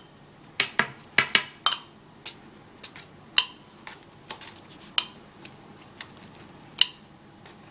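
Pastry brush clinking against the rim of a small metal cup of beaten egg yolk as it is dipped and wiped while glazing puff pastry: irregular sharp clinks, about two a second.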